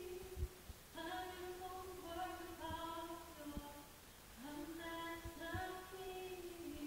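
A woman singing a cappella, slow phrases of long held notes with short breaks between them.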